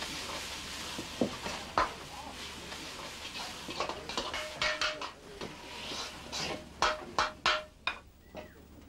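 A metal ladle scraping and clanking against a wok while stir-frying, over a steady hiss. Several sharp clanks come through, with a quick run of them near the end, some ringing briefly.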